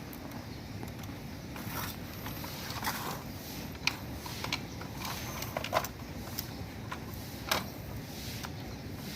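Plastic toy backhoe and toy trucks being worked in sand: scattered short scrapes and clicks of plastic on sand and plastic, a handful of them over several seconds, over a steady low background rumble.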